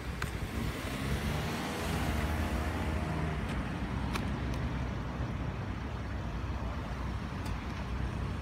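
A car engine pulling away close by, its note rising and then falling off between about one and a half and three and a half seconds in, over a steady low rumble of engines and traffic.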